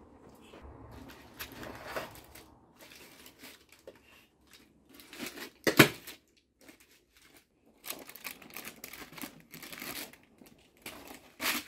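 Baking paper rustling and crinkling in uneven bursts as it is handled and peeled off a freshly baked cornbread, with one sharp clack a little before halfway.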